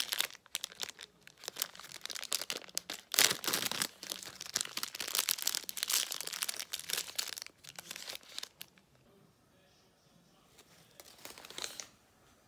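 Plastic wrapper of an individually packed pumpkin rice cake being torn open and handled: a run of crinkling and crackling, loudest about three and six seconds in. It dies down after about eight seconds, with only a faint rustle near the end.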